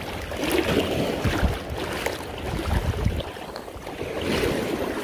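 Wind gusting across the microphone with low rumbles over the steady wash of small waves at the shoreline.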